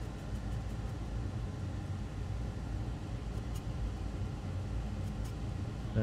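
Steady low hum with a haze of air noise behind it, and a few faint ticks.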